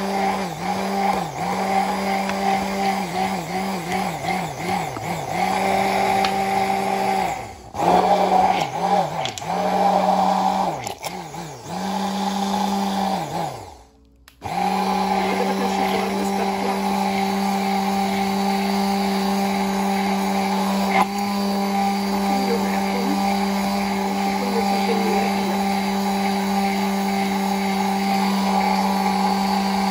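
Immersion (stick) blender motor running in a tall plastic beaker, emulsifying eggs and oil into homemade mayonnaise. Its pitch dips again and again under load in the first half, and it cuts out briefly about halfway, then runs steadily.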